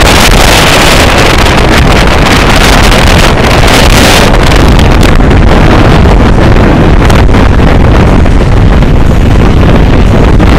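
Typhoon wind buffeting the microphone: loud, continuous wind noise with no letup, pushing the recording close to overload.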